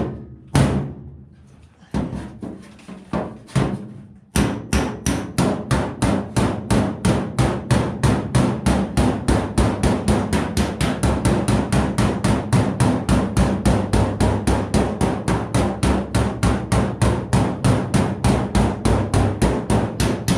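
Hammer striking a steel car body panel against a dolly: a few separate blows, then from about four seconds in a fast, even run of about five blows a second. This is heat shrinking, hammering a heated spot flat before it cools to take the warp out of the panel.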